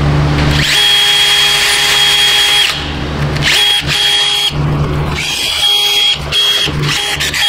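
A hand-held power tool run in about five bursts, each a steady high whine that stops and starts again; the first lasts about two seconds and the rest a second or less.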